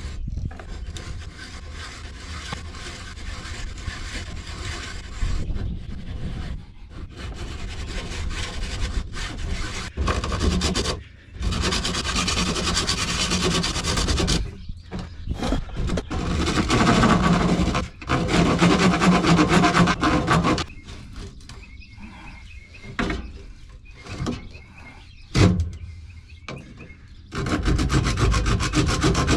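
Hand saw cutting back and forth through a plastic RV black-tank drain pipe, in runs of strokes broken by short pauses, quieter for a few seconds near the end before the strokes pick up again.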